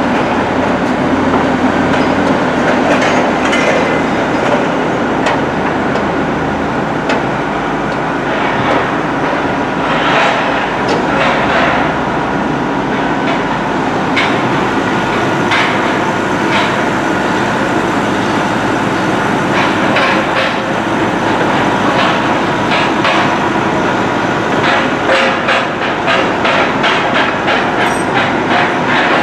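Train running on track: a steady rumble with many irregular clattering knocks, thickening in the second half.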